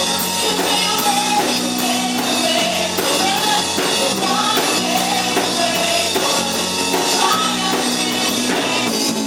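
Contemporary worship band playing with singing over electric instruments and a drum kit, at a steady beat.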